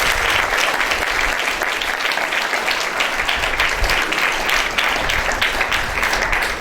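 An audience of students and teachers applauding: many hands clapping steadily in a large hall.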